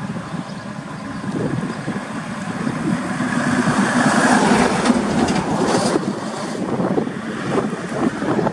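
Volkswagen cattle truck's diesel engine and tyres approaching at road speed, growing louder toward the middle, with wind on the microphone and a couple of sharp clicks.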